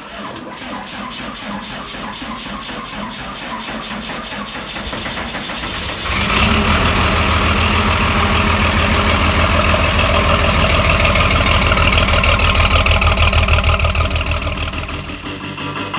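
Large farm-machinery engine running with an even pulse, growing slowly louder, then throttling up sharply about six seconds in and running hard before easing off near the end.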